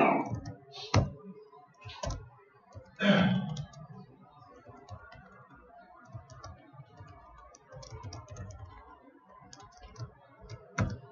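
Computer keyboard typing: irregular clusters of key clicks with a few louder keystrokes, and one short, louder noise about three seconds in.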